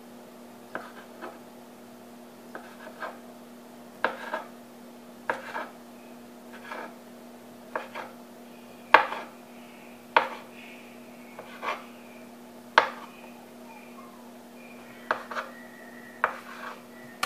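A kitchen knife slicing smoked sausage on a wooden cutting board, the blade knocking against the board with each cut at an irregular pace of roughly one a second.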